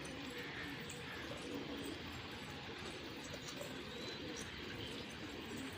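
Domestic pigeons cooing in a steady, overlapping low warble, with a few faint higher chirps.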